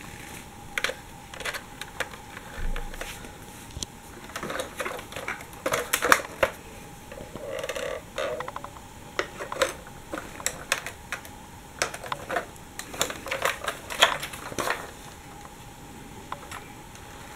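Irregular light clicks, taps and rattles of a plastic toy articulated trolleybus being handled, its doors and roof trolley poles worked by hand. The clicking is thickest in the middle of the stretch and thins out near the end.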